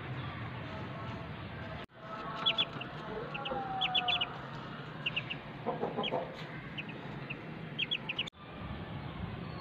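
Aseel chickens: young chicks giving short high peeps in quick clusters of two to four, with a hen's lower clucks, over a steady background hiss. The peeping runs from about two seconds in until near the end.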